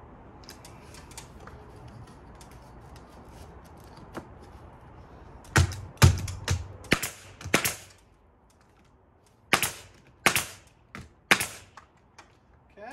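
Pneumatic staple gun, fed by an air hose, driving staples into a quarter-inch panel on the wall: a run of about five sharp shots roughly half a second apart past the middle, then four more a couple of seconds later, with a few light clicks in the first seconds.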